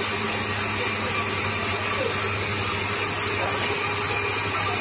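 Electric motor of a woodworking machine running steadily with no cut under way: a constant hum with an even hiss.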